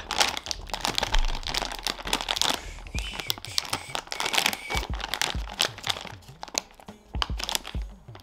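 Plastic snack bag of Chippy barbecue chips crinkling and crackling as it is handled and pulled open, in many irregular crackles with a few dull handling bumps.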